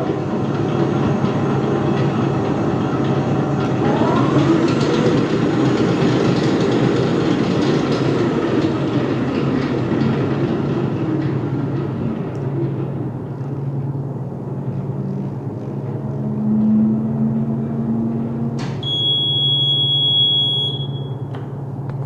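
Hobart HL662 Legacy 60-quart mixer running with an empty bowl: its motor and gear whine rises in pitch right at the start and again about four seconds in as the speed knob is turned up, then goes lower and quieter about halfway through as it is set back to first speed. Near the end a click is followed by a steady high electronic beep lasting about two and a half seconds.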